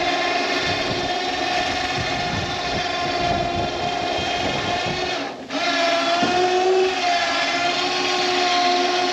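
A small motor whining steadily. It cuts out about five and a half seconds in, then starts again at a slightly changing pitch.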